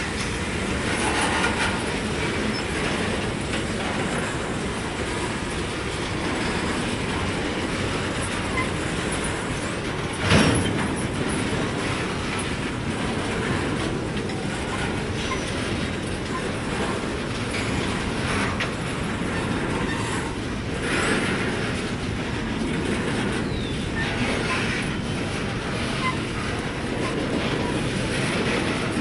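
Freight train cars rolling past: a steady rumble and clatter of steel wheels on the rails, with brief wheel squeals and one sharp metallic clank about ten seconds in.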